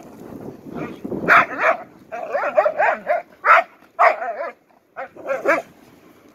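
Pointer dogs barking in play while they wrestle, in a string of short bursts.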